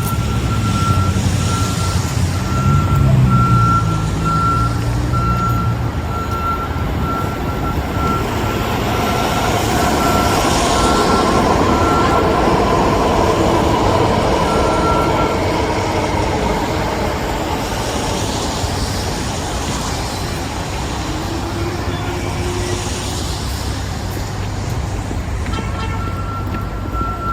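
A truck's reversing alarm beeping at an even pace over a low engine rumble. The beeping stops about halfway through and starts again near the end, while passing traffic swells up twice.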